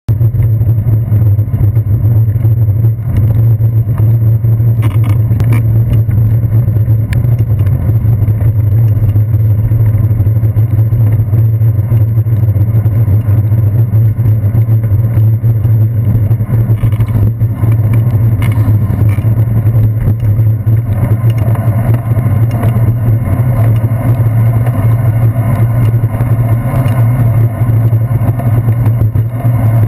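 Steady, loud, muffled low rumble of wind and road vibration picked up by a handlebar-mounted GoPro Hero 2 on a moving bicycle, with a few brief knocks from bumps in the road.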